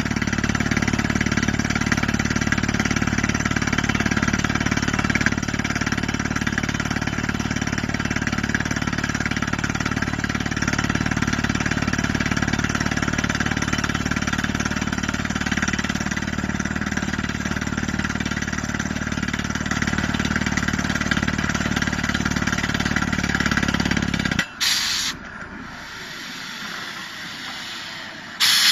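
Pneumatic DTH drilling rig running steadily while it drills into rock, a loud mechanical racket with an engine-like hum. About 24 seconds in the sound cuts off suddenly, leaving a quieter hiss with a short burst of air. A loud rush of air starts near the end.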